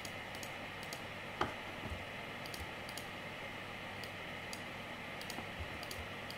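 Scattered soft clicks of a computer mouse and keyboard over a steady low room hiss, with one louder tap about a second and a half in.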